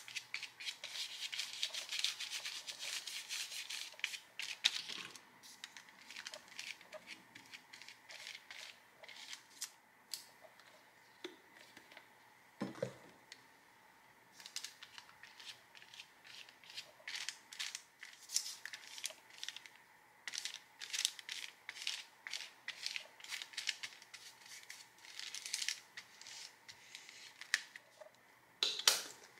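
Paintbrush scrubbing acrylic paint back and forth across watercolor paper in quick scratchy strokes, in runs with short pauses, with one dull knock near the middle.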